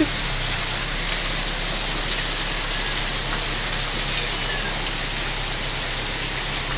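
Heavy rain falling steadily, with a stream of runoff pouring from the roof edge onto the ground.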